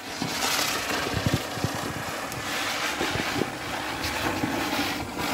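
Ground firework fountains spraying sparks: a sudden loud start, then a steady hissing rush with scattered crackles and a few louder surges.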